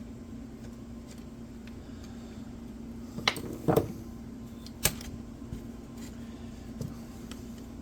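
A few sharp clicks and light knocks of tools and chainsaw parts being handled during disassembly, over a steady low hum.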